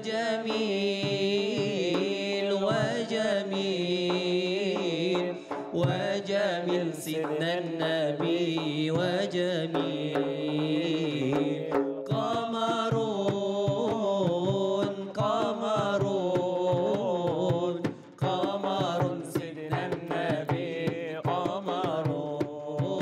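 Male voice singing a long, ornamented Arabic devotional (inshad) melody, accompanied by a hand-played frame drum beating a steady rhythm.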